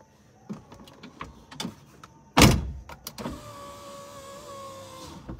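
A loud thump about two and a half seconds in, then a car's electric power window motor running for about two seconds with a steady whine that sinks slightly before it stops. Light clicks and knocks come before the thump.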